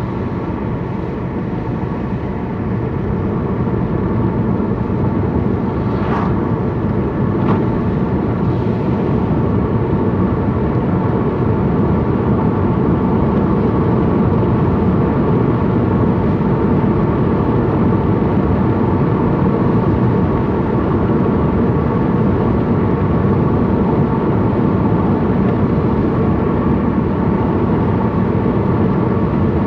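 Car engine and tyre noise heard from inside the cabin while driving at speed, a steady rumble that grows a little louder over the first ten seconds or so. Two faint clicks are heard about six and seven seconds in.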